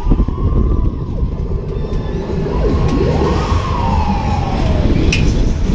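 Heavy low rumble of wind rush on a microphone carried aboard a Technical Park Loopfighter as the ride flips its riders upside down. Long rising and falling screams from the riders slide over it.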